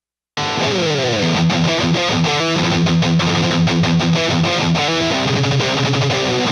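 Distorted electric guitar played through a HeadRush pedalboard rig: Mesa Boogie and Soldano amp models sharing one cabinet, with a Tube Screamer overdrive in front. It starts about a third of a second in with a falling slide, then goes into a riff of held notes and short, rhythmic picked attacks.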